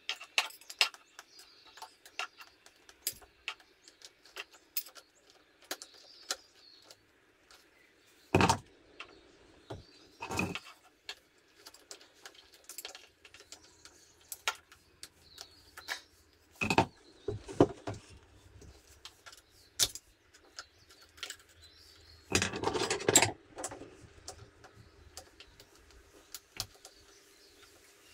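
Irregular metallic clinks, taps and knocks of hand tools and hose fittings being handled in a motorcycle's engine bay, with a few louder clatters, the longest about two-thirds of the way through.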